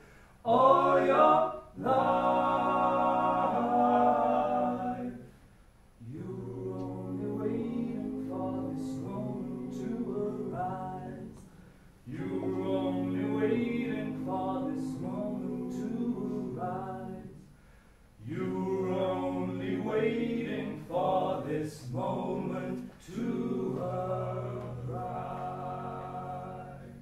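Unaccompanied group singing: several voices in harmony sing a slow song in phrases of a few seconds, with short breaks between phrases.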